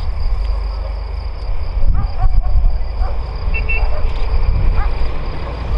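Small birds chirping in short rising notes, again and again, over a steady low rumble.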